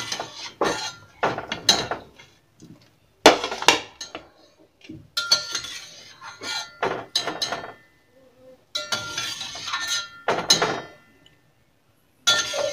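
Metal utensils clinking against a pot and plate in several short bursts, with brief ringing after the knocks, as boiled gram-flour dumplings are lifted out onto a plate.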